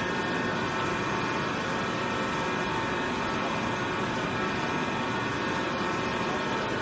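QKF1600 bead ring cutting machine running steadily, its motor-driven cutter working through the sidewall of a large tyre as the tyre turns. A constant machine noise with a steady whine of several high tones.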